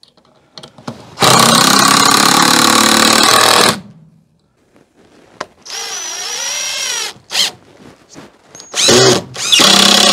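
Power drill driving screws into a wooden shelf brace: a loud run of a few seconds about a second in, a shorter, quieter run with a high whine near the middle, and another loud run starting near the end.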